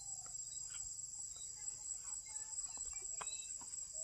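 Steady, high-pitched, unbroken chorus of insects in vegetation, crickets or cicadas trilling together, with a few faint, short sounds underneath.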